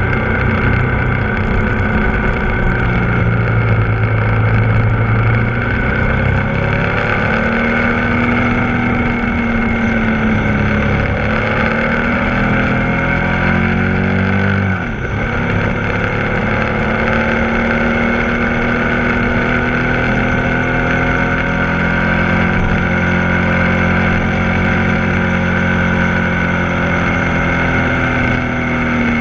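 Ducati Multistrada 1260 S's V-twin engine running under way, its revs rising and falling through the bends, with a brief drop in engine note and level about halfway through, over wind rush.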